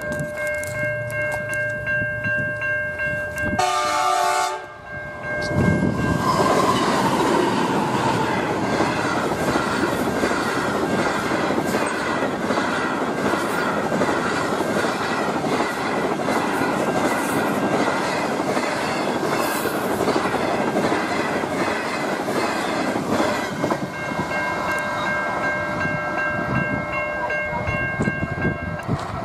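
Great Southern passenger train, led by NR-class diesel-electric locomotives NR31 and NR30 with 20 passenger cars, passing close by: a steady rush of wheels on rail with clickety-clack over the joints. Level crossing bells ring with steady tones at the start and again near the end.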